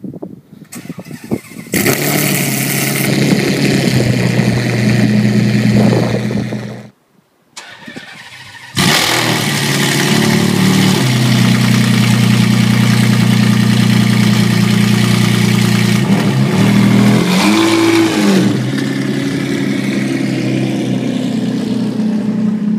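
Ferrari Enzo ZXX (Edo Competition conversion) V12 starting up extremely loud and settling into an idle. It cuts out after about five seconds and fires again a couple of seconds later. It then idles steadily with two short revs that rise and fall.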